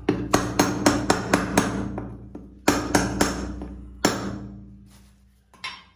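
Hammer blows: a quick run of about six strikes at roughly four a second, then three more, then a single blow, each ringing briefly.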